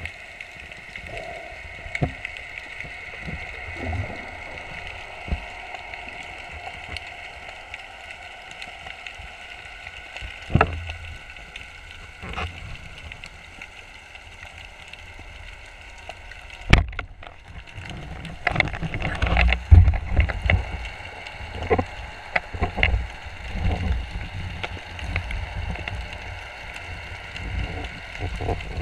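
Underwater sound heard through a camera's waterproof housing: a steady hiss with scattered small clicks. About two-thirds of the way through comes one sharp crack, the band speargun firing, followed by louder, irregular low thumps and knocks as the speared fish is handled.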